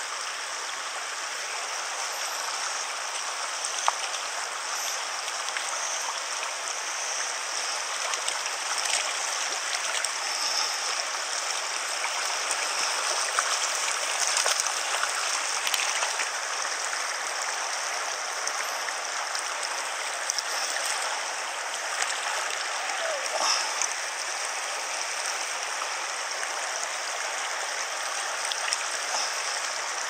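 Small mountain stream running shallow over a stony bed, a steady rush of water through the riffles, with a few light clicks now and then.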